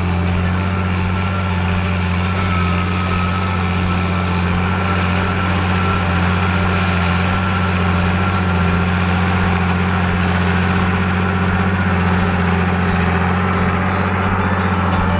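John Deere 8000-series tractor's six-cylinder diesel engine running steadily under load while pulling a semi-mounted plough, with a deep, even hum and a faint steady whine.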